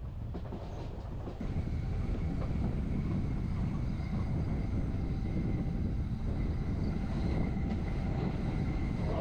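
Berner Oberland Bahn train running along the track, heard from on board: a steady low rumble of wheels and running gear that grows louder about a second and a half in, with a faint steady high whine joining it.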